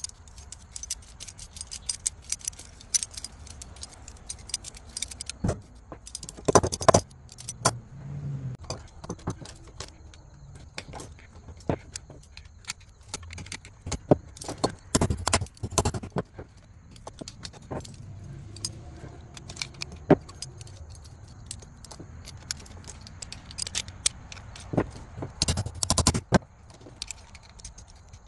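Light metal clinking and rattling, a run of quick clicks with louder rattling bursts about six, fifteen and twenty-five seconds in.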